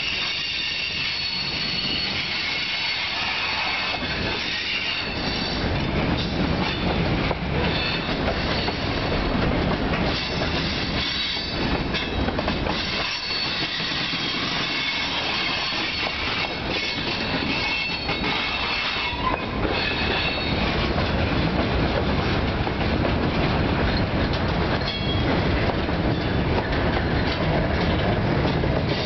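Freight train cars rolling past: steady wheel-on-rail rumble with high, steady wheel squeal.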